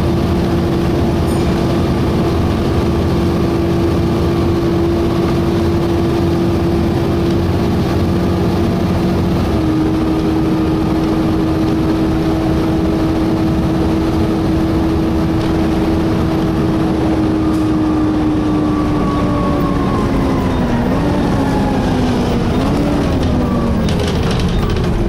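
Volvo B7TL double-decker bus's engine cooling fan whining steadily over diesel engine and road noise, heard inside the lower deck. Over the last several seconds the whine and the tones above it fall in pitch.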